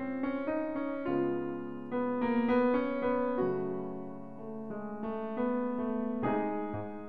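Solo piano playing a classical piece: single notes and chords struck and left to ring, a melody moving over a lower accompaniment.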